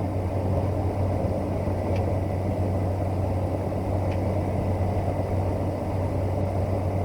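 Cessna 208 Caravan's Pratt & Whitney PT6A turboprop and propeller running steadily in flight, heard inside the cockpit as a constant low hum with a dense rush of noise over it.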